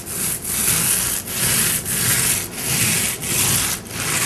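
A 9-inch paint roller loaded with wet metallic paint rolling up and down a wall, a rough rasping noise in repeated strokes with short breaks between them.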